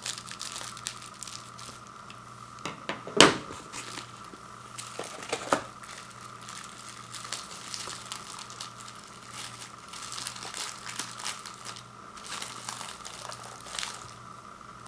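Frozen microwave pizza packaging being handled and opened: plastic wrap and cardboard crinkling and tearing, with a loud sharp snap about three seconds in and a smaller one a couple of seconds later, over a faint steady hum.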